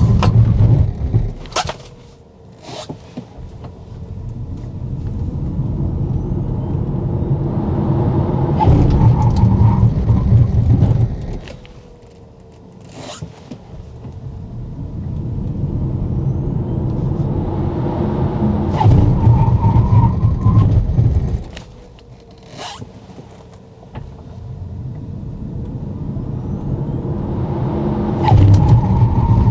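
Tesla Model Y Performance on 19-inch Falcon tyres during repeated hard-braking runs. Three times the road and tyre noise builds as the car speeds up, turns into a loud low rumble under hard braking, then cuts off sharply as the car stops, with a few sharp clicks in between.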